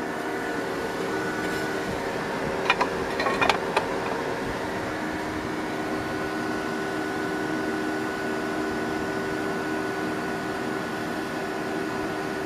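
DC evaporative swamp cooler running steadily, its 12-volt car radiator fan giving a constant hum with a steady whine. A few sharp clicks come about three seconds in.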